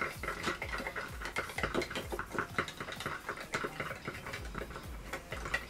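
A small spatula stirring a freshly mixed slime-kit powder and water in a small cup: quick, irregular scraping and clicking against the cup.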